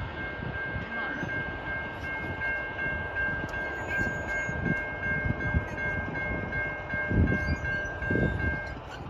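Safetran Type 3 electronic crossing bell ringing with rapid, evenly repeated dings while the crossing gates rise after the train has passed. It cuts off about a second before the end as the gates reach upright. Low rumbling thumps are heard under it, the loudest a couple of seconds before the end.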